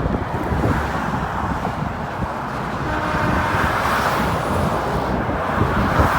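Steady road noise from a vehicle at highway speed, with wind buffeting the microphone.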